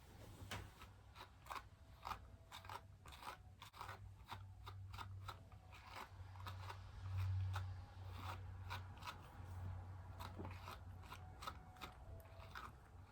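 A brush being drawn through a toy poodle's coat in short, quick raspy strokes, a few each second, over a faint low hum.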